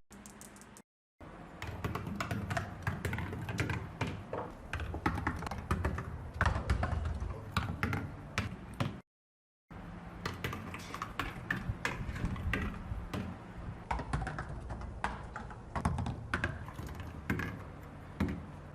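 Irregular light clicking and tapping over a low steady hum, broken by a short silence about nine seconds in.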